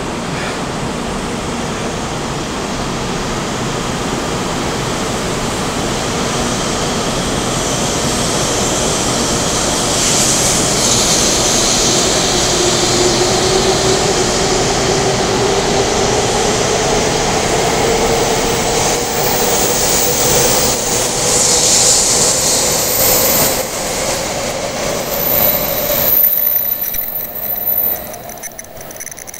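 Taiwan High Speed Rail 700T high-speed trainset accelerating away from the platform: a growing rush of wheels and air with a whine that rises steadily in pitch as it speeds up. About 26 seconds in, the last car clears and the sound falls away quickly.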